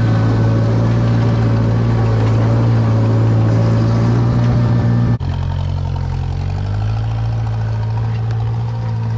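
Engine of an old Gehl 4400 skid steer running steadily under way. About five seconds in the sound breaks off sharply and resumes slightly quieter and lower-pitched.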